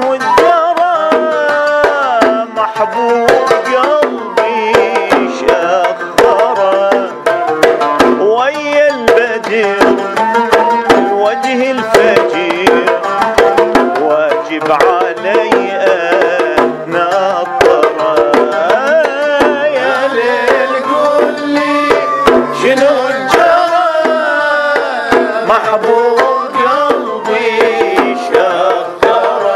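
Iraqi sawt-rhythm ensemble music: several small rope-laced two-headed hand drums (mirwas) beating many quick strokes in the sawt rhythm, under an oud and a wavering sung melody.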